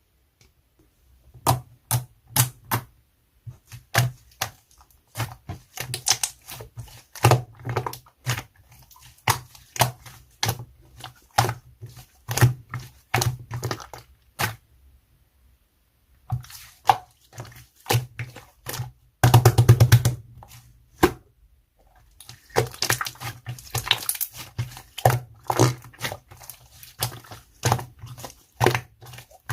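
Marbled slime being squeezed and pressed by hand, giving many irregular sharp clicks and pops as air pockets burst, with a short pause partway and a dense crackling run near the end.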